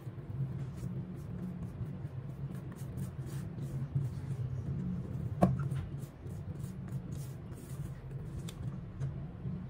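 Silicone spatula scraping and folding thick cake batter against a stainless steel bowl in repeated strokes, with one sharp knock about halfway through. A low steady hum runs underneath.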